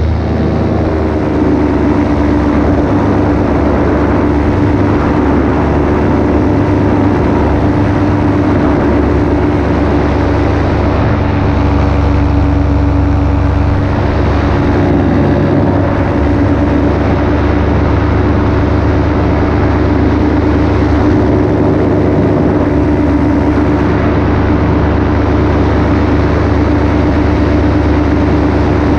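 Paramotor engine and propeller running steadily in flight, its pitch easing down a little about a second in and then holding steady.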